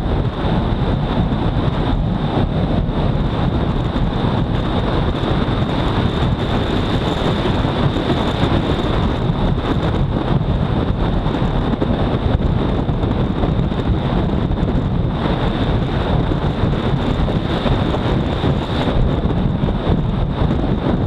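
Steady, loud wind rush buffeting the bike-mounted camera's microphone at highway speed. The Honda CBR250R's single-cylinder engine runs underneath it, and a steady high whine sits over it.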